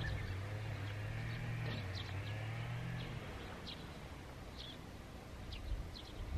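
Small birds chirping here and there, short high calls, over a low steady hum that stops about three seconds in.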